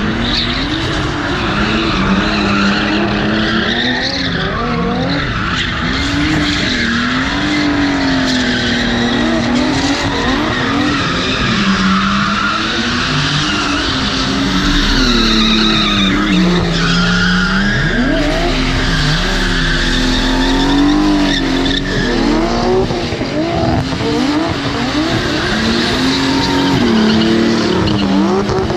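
Two drift cars sliding in tandem: their engines rev up and down constantly on and off the throttle over continuous tyre screech.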